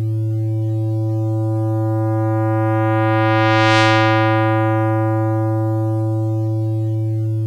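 Computer-synthesized tone from a discrete summation formula on a low A (110 Hz) with only odd harmonics, a little square-wavy. Its upper harmonics swell in and grow brightest just under four seconds in, then fade back to a mellower tone.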